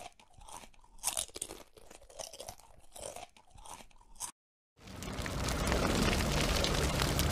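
A crunching sound effect of taco shells being chewed: a run of short crunches for about four seconds. After a brief silence, a rushing roar of fire builds up and holds, louder than the crunching.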